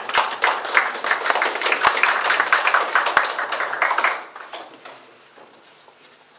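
Audience applauding: dense clapping that dies away about four seconds in, leaving a few scattered claps.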